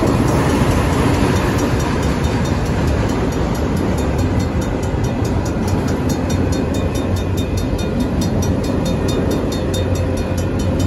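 Union Pacific freight train's autorack cars rolling past on the rails, with the crossing's RACO mechanical bell ringing in rapid, even strikes throughout.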